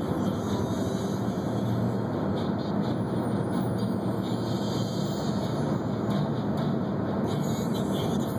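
A car driving at a steady speed: even tyre and road noise with a low engine hum underneath.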